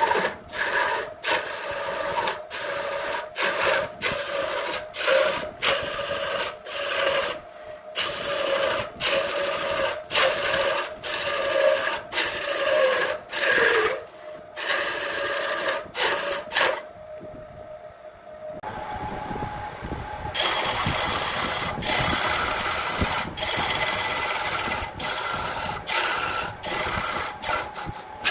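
Wood lathe turning a large cylinder of wood while a hand-held turning tool cuts into it. For most of the clip the cuts come in short repeated strokes over a steady tone. After a brief quieter stretch about two-thirds in, they give way to a heavier, continuous scraping cut.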